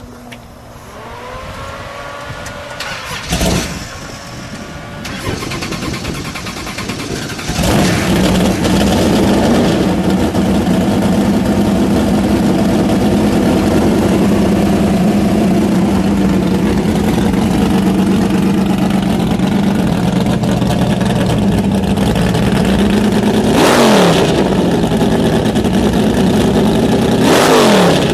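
1966 Plymouth Belvedere I drag wagon's 426 Hemi V8 being started: it turns over for several seconds, catches about seven or eight seconds in and settles into a loud, steady idle. Two quick revs of the throttle come near the end.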